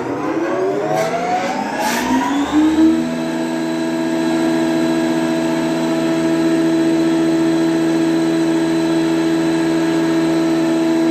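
A Colombo ACS 20-inch (500 mm) thickness planer's motor and cutterhead spinning up, rising in pitch for about three seconds with a couple of clicks, then running steadily at full speed with an even hum and whine.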